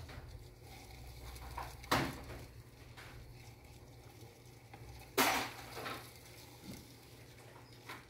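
Two brief knocks or scuffs about three seconds apart, the second the louder, with a fainter one shortly after it, over a steady low hum.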